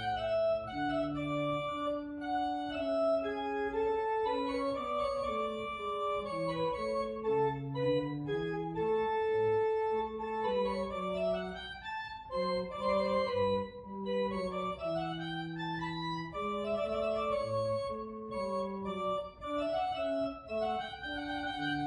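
Organ music: held chords and melody notes, with quick rising and falling runs about halfway through.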